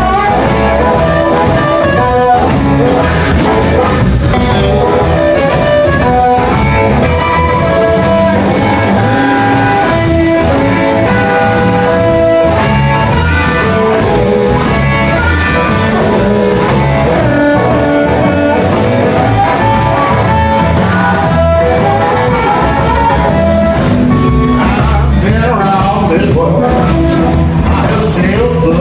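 Live electric blues band playing: amplified harmonica lead with held, bending notes over electric guitars, bass guitar and drums.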